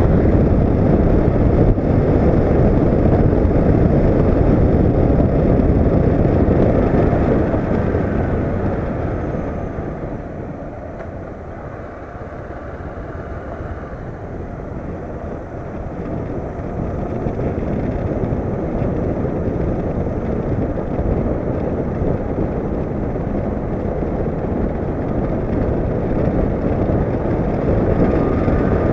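Riding noise from a Honda CB500X's 471 cc parallel-twin motorcycle on the move: a steady rush of wind on the action camera's microphone over the engine. It dies down about a third of the way in and builds back up again.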